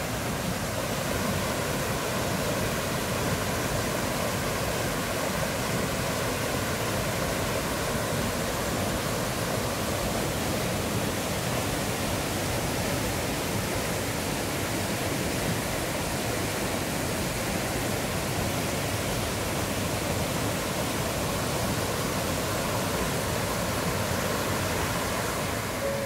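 Mountain stream rushing over boulders in small white-water cascades: a steady, even rush of water.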